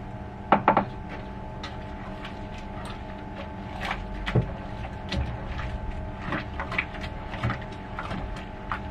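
Brewing gear being handled at a plastic mash tun. There are two sharp clanks about half a second in, then scattered light taps, clicks and knocks, all over a steady hum.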